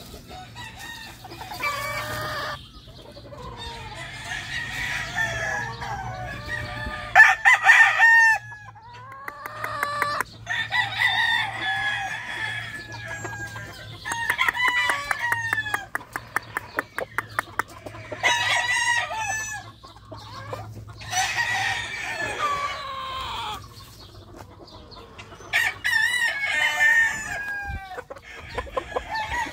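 Roosters crowing over and over, one long crow every three to four seconds, with clucking between the crows.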